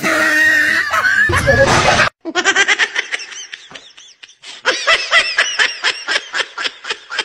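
A loud, noisy sound cuts off abruptly about two seconds in. After it, a person laughs in rapid, high-pitched bursts, several a second.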